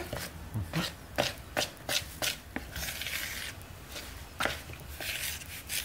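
A metal utensil knocking and scraping against a plastic mixing bowl as flour, lard and yeast liquid are worked into a firm dough. The knocks are sharp and irregular, a few a second, with scraping between them.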